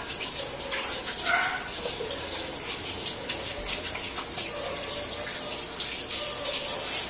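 Spicy rabokki sauce with noodles and rice cakes sizzling and bubbling in a frying pan as it cooks down, a steady crackling hiss.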